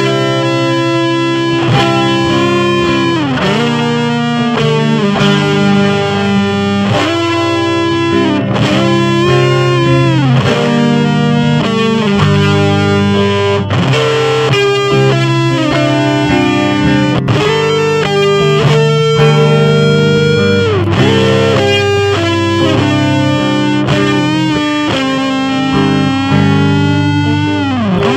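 Electric guitar played through a Buzzaround-style fuzz pedal (Blackstrap Bartleby, NKT-213 transistor): a single-note melodic lead with long sustained notes, several of them bending down in pitch.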